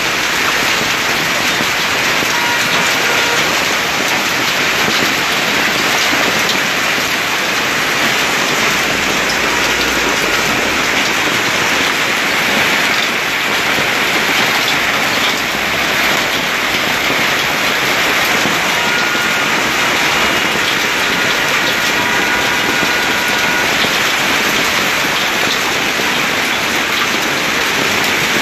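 Hailstorm: hailstones and rain falling steadily and hard, a dense, even patter of ice hitting parked cars and the street.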